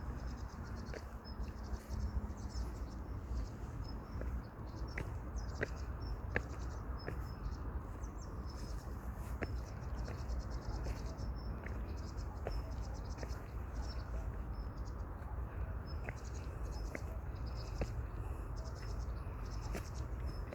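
Footsteps on a path at a steady walking pace, a light tick every step. Insects chirp in repeated high, rapidly pulsed trills, over a low steady rumble.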